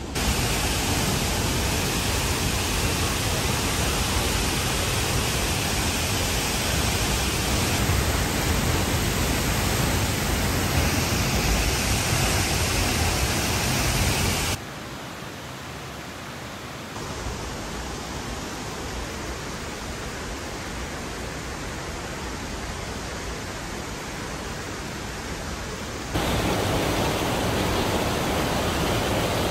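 Steady rushing of a tall waterfall plunging into a pool, an even hiss with no separate events. The level drops abruptly about fifteen seconds in and jumps back up near the end, at cuts between recordings.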